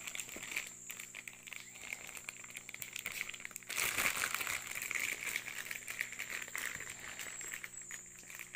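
Clear plastic packaging bag crinkling and rustling as a phone holder is lifted out of a cardboard box and handled. The crinkling gets louder about four seconds in.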